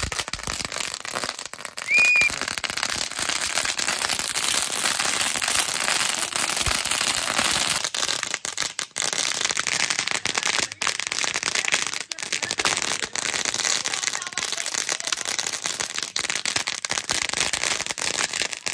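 A long-running firecracker going off continuously on the ground: a dense, unbroken crackle of small pops and snaps. A short high squeal cuts through about two seconds in.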